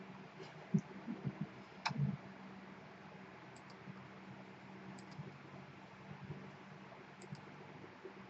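Steady low hum, with a cluster of soft knocks and clicks about one to two seconds in, then a few faint, sparse high ticks.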